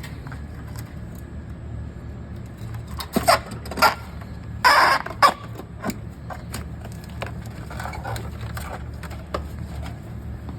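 Cardboard baler at work: a steady low hum, with a quick run of sharp knocks and a longer metallic scrape about three to five seconds in.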